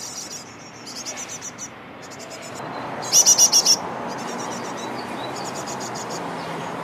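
A small bird chirping in short phrases of rapid high trilled notes with brief gaps between them, one phrase much louder about three seconds in. A steady background hiss grows louder partway through.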